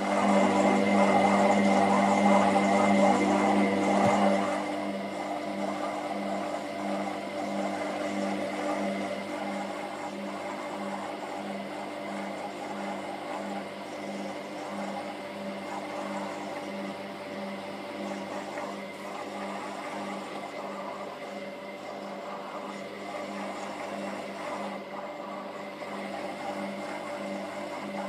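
Candy GO DF800 front-loading washing machine on its spin cycle with the door open: motor whir and drum running with a regular pulsing beat, a little more than once a second. It is louder and noisier for the first four seconds, then settles to a steadier spin.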